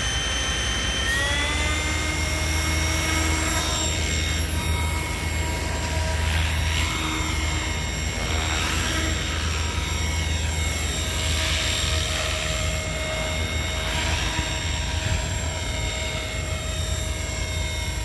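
Radio-controlled model helicopter running: a high whine from its motor and rotor that rises in pitch about a second in, then holds steady as it lifts off and flies. A rushing rotor sound over it swells and fades as the helicopter moves about.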